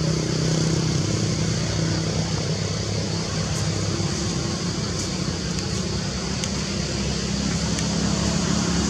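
Motor vehicle engine running steadily, a low idling hum under a constant hiss, with a few faint clicks.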